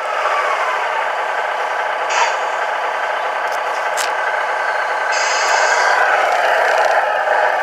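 Tamiya radio-controlled model vehicle running, with a steady mechanical whir from its motor and gears. Short hisses come about two seconds in and again about five seconds in, and a few light ticks sound in between.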